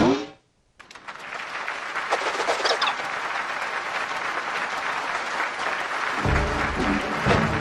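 A short, loud vocal sound falling in pitch, then a brief gap before audience applause swells in and carries on steadily. About six seconds in, music with a low, pulsing line starts up under the applause.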